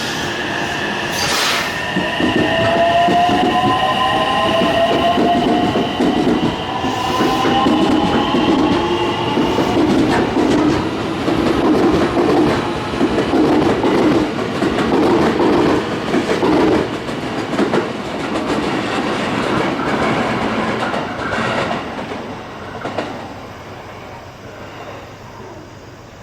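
JR West electric commuter train pulling out of the station: the motors whine, rising slowly in pitch as it gathers speed. The wheels rumble and clatter over the rail joints, then fade away near the end.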